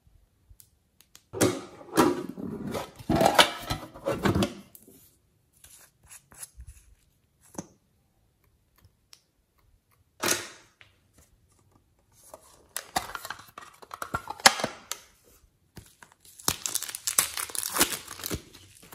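Soft modelling clay and its plastic piping bags being squeezed, torn and pressed onto slime: several stretches of crinkling, squishing and tearing, each one to three seconds long, with short quiet gaps between.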